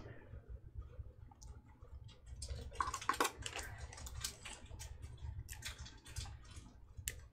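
Chrome-finish trading cards being flicked through by hand, the stiff cards giving faint, irregular clicks and slides as they rub and tap against each other.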